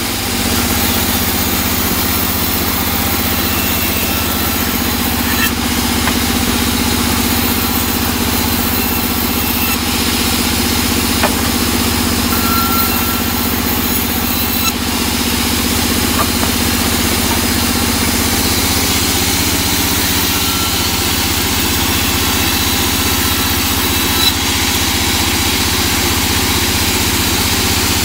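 Large sawmill band saw running steadily, ripping teak boards that are pushed through the blade by hand.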